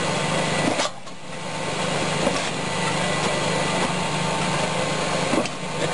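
Homemade belt-driven firewood chopping machine running steadily, with a few sharp knocks as it chops wood. The sound dips briefly about a second in and builds back up.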